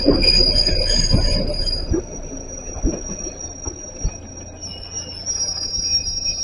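JR 213 series 5000 two-car electric train rolling slowly into the platform as it comes to a stop, with a steady high-pitched wheel and brake squeal whose pitch shifts about two seconds in, and a few low thuds from the wheels over the track.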